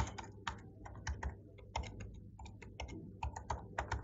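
Typing on a laptop keyboard: a quick, uneven run of keystroke clicks, about four a second.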